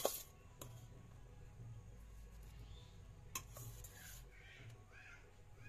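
Steel serving spoon clinking and scraping against a stainless steel bowl as rice is scooped out, with a sharp clink at the start and another about three seconds in. From about four seconds in, birds call repeatedly in the background, short rising-and-falling calls.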